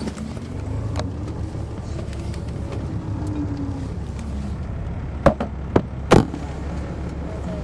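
A Caterpillar C13 ACERT diesel engine of an MCI D4500CL coach running under way, heard from inside the bus as a steady drone, with a faint whine that rises and then falls in pitch. About five to six seconds in come three sharp knocks.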